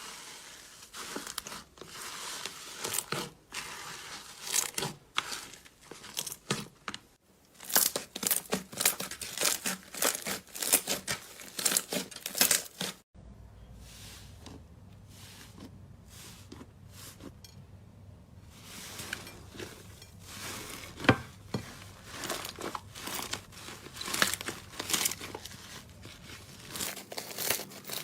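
Slime being squeezed and pressed by hand, giving dense runs of crackling, popping clicks. About halfway through the sound shifts, with a faint low hum coming in under the clicks.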